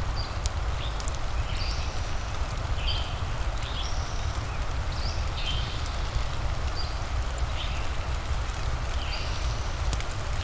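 Rain and fireplace ambience: a steady low rumble and hiss with sparse sharp crackles, over which a short high chirp repeats about once a second.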